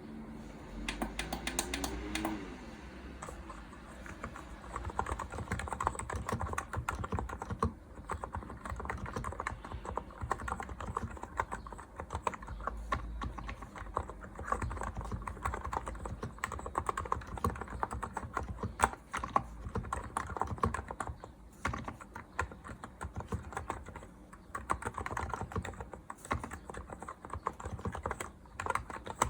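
Typing on a Hansung GK868B mechanical keyboard: a continuous, uneven patter of key clicks.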